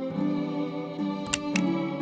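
Instrumental background music: sustained pitched notes, with a couple of sharp percussive ticks near the end.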